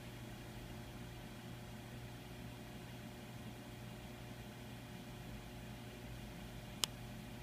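Steady background hum and hiss of room noise, with a single sharp click near the end.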